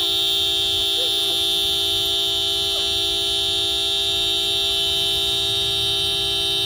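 Car horn held down in one long continuous honk, set off by a husky pressing its paw on the steering wheel.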